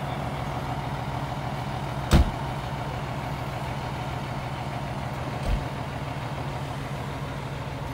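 Fire engine idling steadily, with a loud slam of its cab door about two seconds in and a softer thump about five and a half seconds in.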